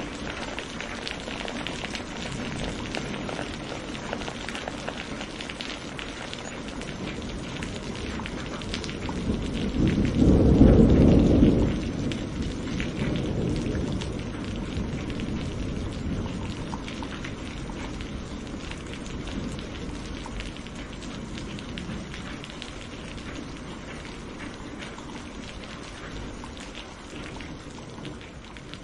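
Steady rain falling, with a roll of thunder about ten seconds in that rumbles low for a couple of seconds and dies away. The rain slowly fades near the end.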